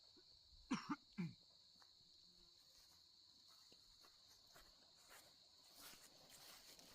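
Crickets chirring steadily in a high, even tone, with two or three short loud calls with falling pitch about a second in.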